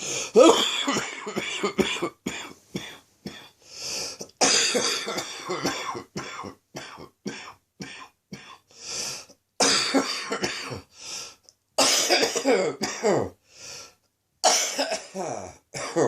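A person's chesty cough from a chest infection, coming in about five fits of several quick coughs each, the strongest fit at the start.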